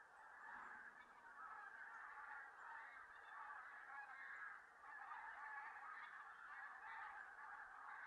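A distant flock of bean geese calling, a faint, unbroken chorus of many overlapping honks.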